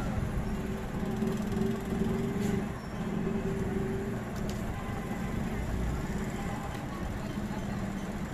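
Steady low drone of background road traffic, with two faint clicks.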